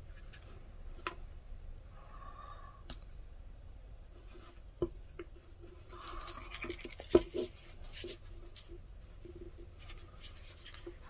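Leather being hand-stitched: thread drawn through punched holes in the leather with short, faint rasps, and needles and leather handled with scattered small ticks, the sharpest about seven seconds in.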